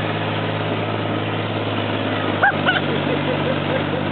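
Tank engine running steadily as the tank drives, heard from on top of the hull. About two and a half seconds in, a couple of short high-pitched sounds cut through.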